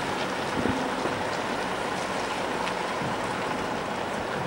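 Steady hiss of rain falling on a wet concrete dock, with a few faint drop ticks, and a truck's engine running low underneath.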